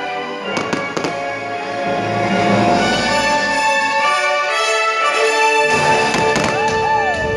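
Orchestral fireworks-show music playing loudly, with aerial firework shells bursting over it in sharp bangs: two about half a second to a second in, and a few more near the end.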